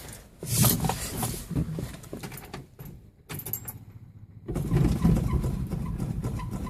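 Key and handling rattles, then about four and a half seconds in the starter begins cranking the 1966 Mustang's 302 V8 over on a cold start at about 35 °F, turning steadily without catching yet.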